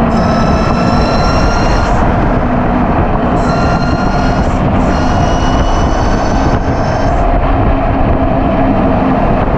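Electric motorcycle's 72 V 5000 W QS hub motor whining as it rides, the thin high whine climbing slowly in pitch in stretches and dropping out between them, over loud steady wind and tyre noise.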